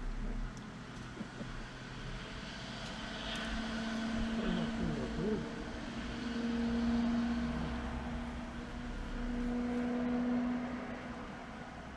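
A distant engine droning as a steady hum that swells louder about halfway through and again near the end, with a brief wavering of pitch a few seconds in.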